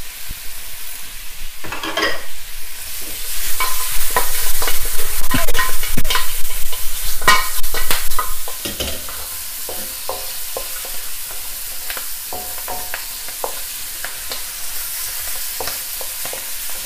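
Pork ribs frying in a hot wok, stirred and tossed with a wooden spatula that scrapes and knocks against the pan over a steady sizzle. It is loudest for about five seconds in the middle, then settles to a quieter sizzle with occasional scrapes, as the hoisin sauce cooks down until it starts to catch.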